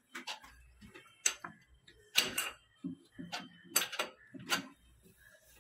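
A wrench and brass pipe fittings clicking and clinking while the connections of a small pressure booster pump are tightened, about ten sharp, irregular clicks.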